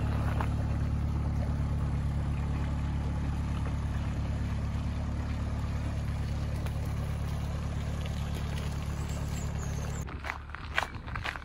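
Canal narrowboat engine running steadily with a low, even hum. It cuts off abruptly about ten seconds in, and footsteps on the towpath follow.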